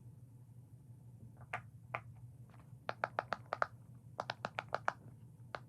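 Silicone pop-it fidget toy being pressed: a string of short soft pops as the bubbles are pushed through, a few spaced ones and then two quick runs of five or six.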